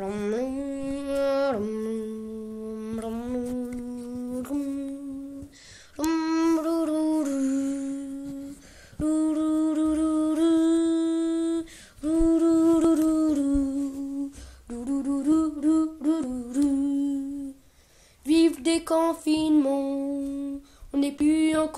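A child humming a slow tune in long held notes, in about seven phrases with short breaks between them.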